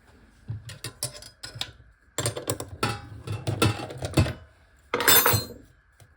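Small metal clicks and clinks as loose ball bearings are worked out of a grease-packed bicycle wheel hub: a few at first, then a dense flurry, with a short, louder rattling scrape about five seconds in.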